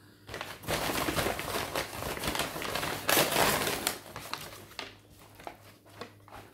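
Takeaway carrier bag crinkling and rustling as it is unpacked, dense and loud for about three seconds, then a few lighter rustles and knocks.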